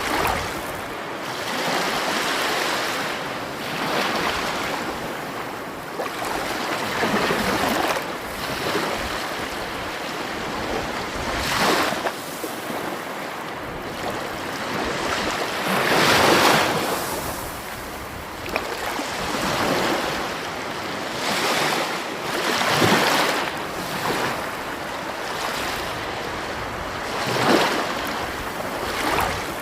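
Sea waves washing onto the shore, a steady rush of surf that swells and breaks again every few seconds, with the biggest surges about a third and half-way through and near the end.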